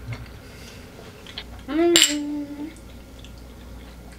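A single sharp clink of glassware or tableware about two seconds in, with a short hum-like vocal tone that rises and then holds for about a second.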